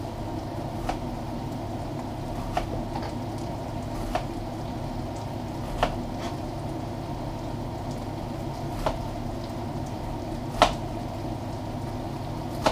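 Kitchen knife tapping sharply on a cutting board while an onion is finely chopped, one tap every second or two, the loudest about ten and a half seconds in. Under it, a steady simmering from a pot of beef chunks cooking for stew.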